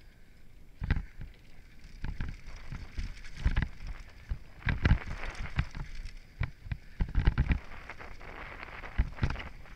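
Downhill mountain bike riding fast over a dry, rough dirt trail, heard from a helmet camera: tyres rushing over loose dirt and stones under wind noise on the microphone, broken by irregular knocks and rattles as the bike hits bumps, the loudest about five and seven seconds in.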